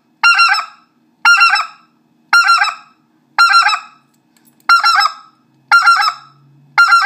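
Specklebelly goose call blown in the basic three-note 'tee-hee-hee' pattern, seven times at about one a second. Each call starts hardest on the first note and steps down lighter through the next two, imitating a white-fronted goose.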